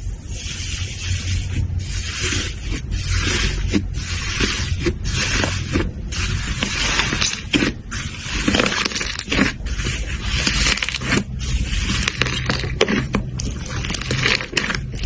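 Hands squishing and pressing slime: a continuous sticky crackling, thick with small irregular pops and clicks, over a low steady hum.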